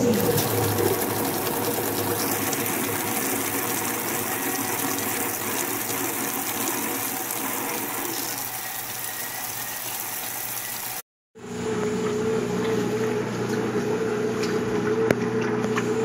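Brastemp top-loading washing machine: a falling motor tone at the start, then a steady rush of water filling the tub for about eleven seconds. After a brief break it changes to a steady motor hum with a slight wobble as the agitator churns the clothes in the water.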